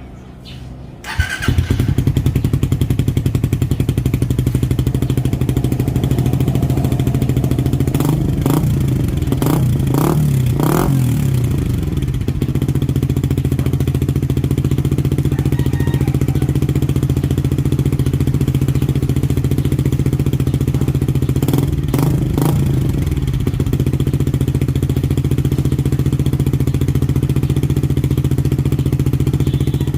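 Suzuki Raider R150 Fi single-cylinder engine running through a VMAX aftermarket exhaust. It starts about a second in and idles steadily. It is blipped up several times a little past a quarter of the way through and twice more about two-thirds through, settling back to idle after each.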